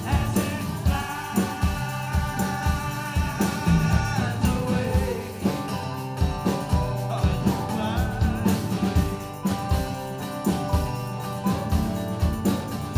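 Live acoustic band playing an instrumental passage: a lap steel guitar's sliding lead over a strummed acoustic guitar, with a steady beat.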